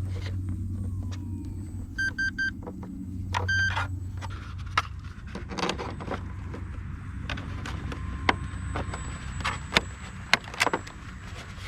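Short electronic beeps from the RC model's gear, three in a row about two seconds in and one more a second later, with scattered sharp clicks and knocks of handling over a steady low hum.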